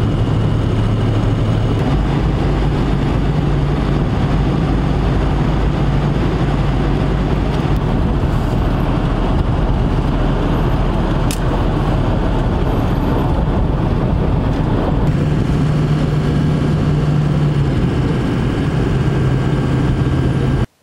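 Road and engine noise inside a pickup truck's cab at highway speed, towing a loaded trailer: a steady drone of tyres and engine with a low hum. The hum changes pitch about two seconds in and again about fifteen seconds in.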